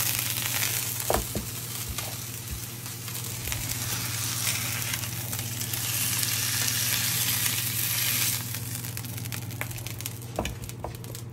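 Lamb shoulder blade chops searing in hot fat in a cast iron skillet, sizzling steadily, the sizzle easing after about eight seconds. A few sharp knocks come as the chops are turned and lifted out of the pan, over a steady low hum.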